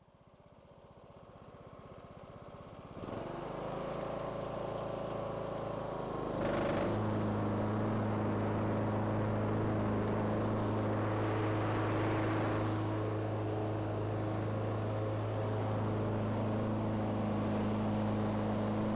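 Riding lawn tractor engine running, faint at first and growing louder. About three seconds in it picks up, and at about six and a half seconds there is a brief knock, after which it runs steadily and louder with a deep hum as the mower deck blows air into the leaf bag.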